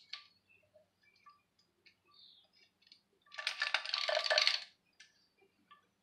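Light clicks of metal parts being handled, then about a second and a half of dense metallic clinking and rattling around the middle.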